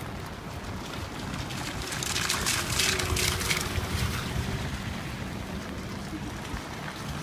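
Outdoor noise on a phone microphone in the rain: a low wind rumble under a hiss of rain and street traffic. A louder rustling stretch comes about two to four seconds in.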